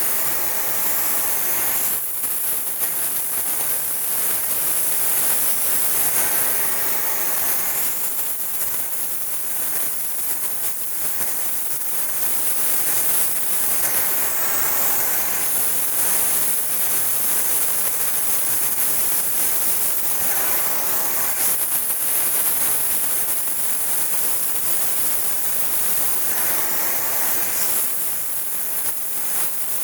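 Gas brazing torch flame hissing steadily while pipe joints are brazed, with brief swells in the hiss every several seconds.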